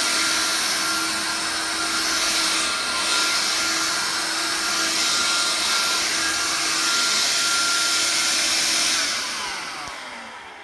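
Vax Air Cordless Lift stick vacuum running steadily on a rug, a hiss of suction with a steady motor whine. About nine seconds in it is switched off, and the motor winds down with a falling whine.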